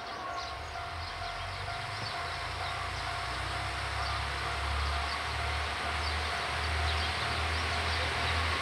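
Tango Explorer KTR 8000 series diesel train approaching slowly, its low engine rumble and wheel noise growing steadily louder. Faint short high chirps sound throughout.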